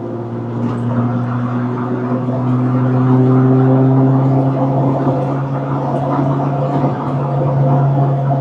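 Acura Integra's four-cylinder engine under load while driving, its note rising steadily over the first few seconds, then holding with a small dip and rise near the end.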